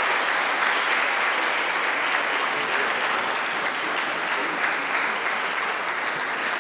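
A crowd of people applauding: dense, steady clapping from many hands.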